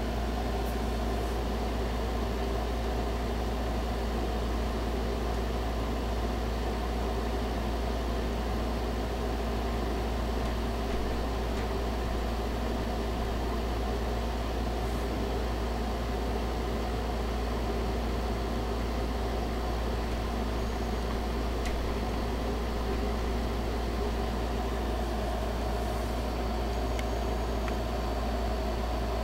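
Steady mechanical hum with a deep rumble underneath, unchanging throughout.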